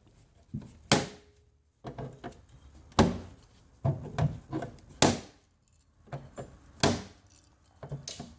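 Sharp metallic snaps and clinks, a loud one about every two seconds with lighter clinks between, as the welded pull pins are taken off the steel door skin after dent pulling.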